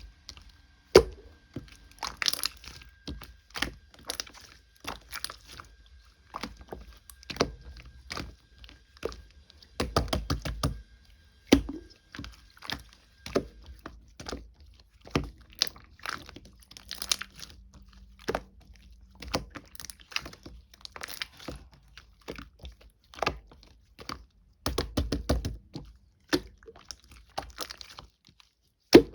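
Slime being squeezed and poked by hand, giving irregular sharp crackling pops and clicks with a few longer crunchy bursts.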